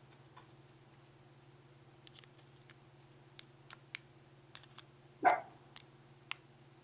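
Light plastic clicks as the top half of a two-piece hard plastic iPhone 4 case is slid onto the phone, over a steady low hum. One short dog bark a little past halfway.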